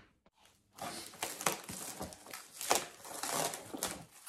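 Plastic cling wrap crinkling and rustling as it is stretched over and pressed around a bowl, starting about a second in.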